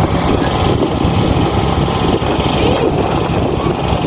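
Traditional wooden dhow's engine running steadily under way: a loud, constant drone.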